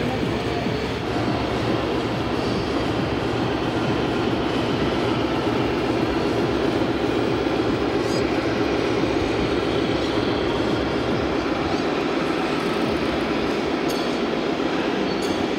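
Scale RC Mercedes-Benz Actros SLT heavy-haulage truck driving slowly under load, giving a steady mechanical drone. A few faint clinks near the end.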